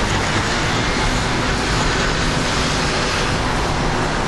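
Steady road traffic noise, with a flickering low rumble underneath.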